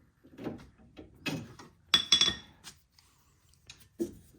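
A few metal clinks and knocks from steel suspension parts and tools being handled while a sway bar link is fitted, the loudest a sharp clink with a short ring about two seconds in.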